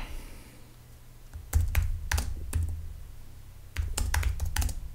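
Computer keyboard typing: a handful of keystrokes starting about one and a half seconds in, a short pause, then a quicker run of keystrokes near the end.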